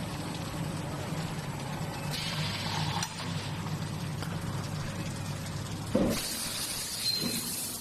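Hot-forging line machinery running with a steady low hum. A hiss of compressed air comes about two seconds in. About six seconds in there is one heavy thump as the forging press strikes the glowing bolt blank in its die, followed by more than a second of loud air hiss.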